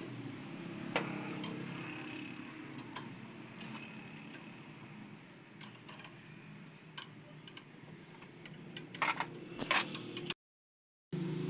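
Scattered light metallic ticks and clinks of hand tools on car parts, with a quick cluster of sharper clicks about nine seconds in, over a steady low hum. The sound drops out to silence for a moment near the end.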